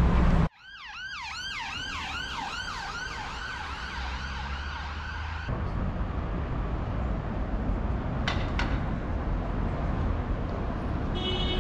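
Emergency vehicle siren wailing rapidly up and down, about two to three cycles a second, fading in and then cutting off abruptly about five and a half seconds in. Steady city traffic noise runs underneath.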